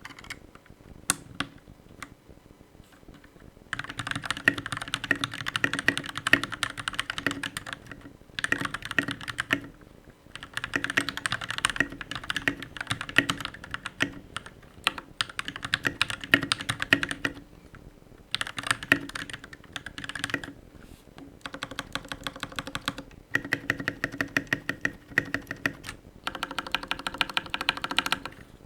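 Typing on a mechanical keyboard with Jwick Yellow linear switches. A few single keystrokes come first, then fast runs of key presses broken by short pauses.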